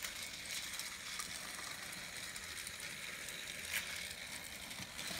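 Motorized Thomas and Friends toy trains running on plastic track: a faint, steady whirring rattle of small motors and wheels, with one short click near the end.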